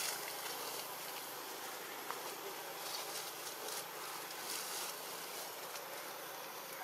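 Steady outdoor ambience with insects buzzing and a few faint clicks and rustles.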